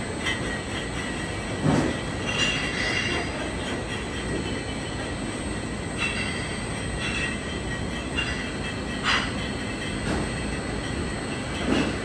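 Bottling line running: a bottle-filling machine's steady mechanical running noise, with glass bottles clinking every second or two as they move through the filler.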